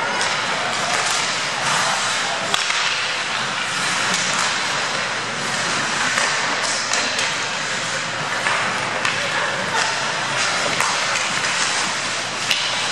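Ice hockey play: skate blades scraping and carving the ice in a steady hiss, with sharp clacks of sticks and puck scattered through. The loudest clacks come about two and a half seconds in and near the end.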